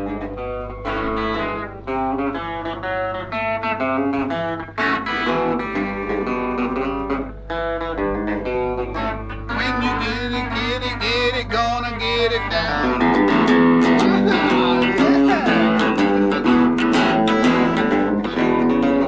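Background music led by plucked guitar, getting fuller and louder about two-thirds of the way through.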